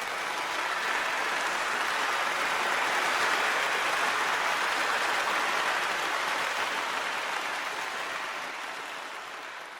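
Applause: dense, even clapping that swells over the first few seconds, then gradually fades out.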